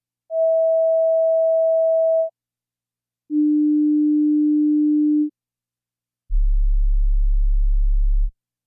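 Three steady pure test tones, each about two seconds long with a second of silence between, falling in pitch from a middle tone to a low one to a very low one. They are a playback check that headphones or speakers can reproduce the very low frequencies of heart sounds.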